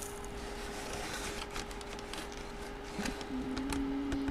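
Faint handling of a trading-card box and its packaging being opened: soft rustling with a few light ticks.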